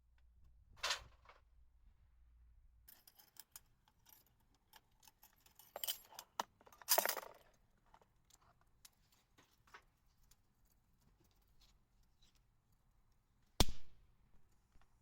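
Light clinks, rustles and knocks of small objects being handled, with a sharp click near the end.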